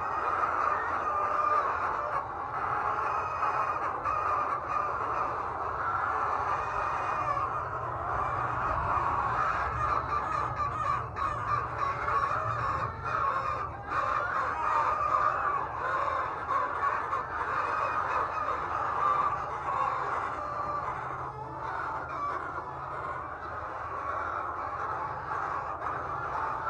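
A large flock of laying hens clucking and squawking together in a continuous dense chatter, over a steady low hum.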